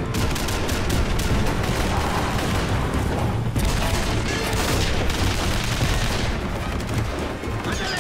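TV battle soundtrack: rapid automatic gunfire and booms over a music score, with a steady low rumble underneath.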